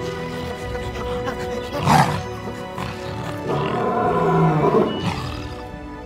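Background music with two loud roaring screams over it: a short one about two seconds in and a longer one from about three and a half to five seconds.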